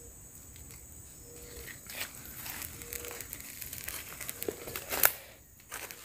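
Rustling and crinkling from hands working in leaves and undergrowth, with scattered small clicks and one sharp click about five seconds in.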